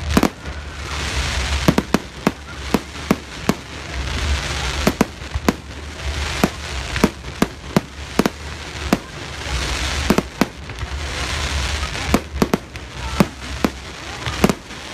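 Fireworks display: shells bursting in a rapid, irregular string of sharp bangs, often several a second, with two stretches of hissing crackle between them, about a second in and again about ten seconds in.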